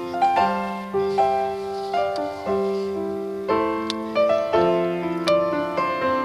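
Background piano music: a gentle melody over held chords, new notes struck about every half second.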